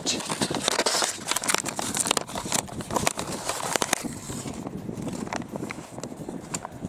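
Paper wrapper crinkling and rustling as it is pulled open and a 3D-printed plastic popsicle is slid out. The crinkling is busiest for the first four seconds or so, then gives way to a few light handling clicks.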